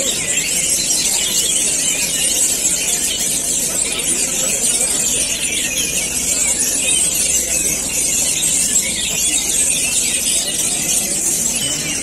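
Many caged songbirds singing at once in a dense, unbroken chorus of overlapping quick chirps and whistles.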